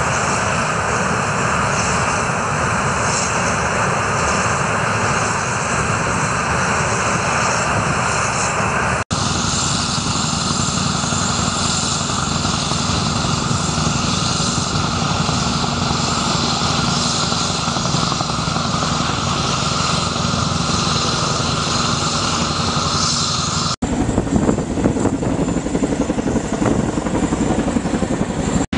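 Loud, steady roar of a military landing hovercraft's gas turbines, lift fans and propellers running on the beach, mixed with helicopters flying past. After a cut about four-fifths of the way through, the roar turns choppier and more uneven.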